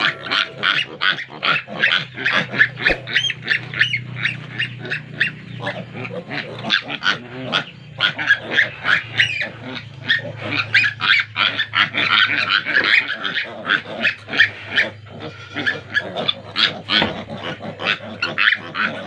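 Young piglets squealing and grunting, a dense run of short, high calls several to the second, over a low steady hum.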